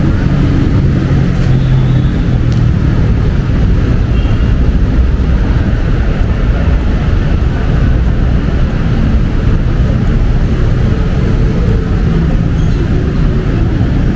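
Steady city road traffic: a continuous mix of vehicle engines and tyre noise, strongest at the low end, with no pauses.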